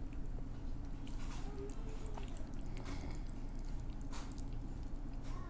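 A person chewing and smacking on a mouthful of spaghetti close to the microphone, with sharp wet clicks at irregular moments. Under it runs a steady low rumble.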